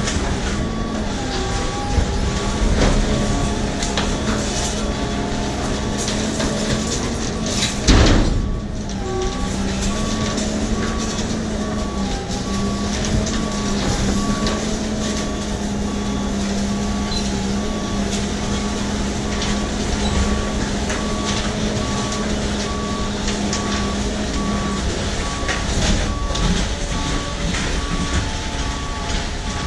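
Dumpster-compacting truck running, its engine and hydraulics driving a boom arm that presses down into a roll-off dumpster, with a steady drone and a warning beep repeating throughout. A single sudden loud burst of noise comes about eight seconds in.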